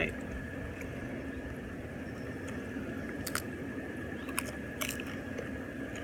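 A person chewing a mouthful of food close to the microphone, with a few crisp crunches about three, four and five seconds in, over a steady rush of jacuzzi water.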